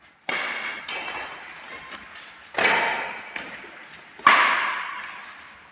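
Badminton racket strings striking a shuttlecock in a rally: three sharp hits about two seconds apart, each trailing off over about a second.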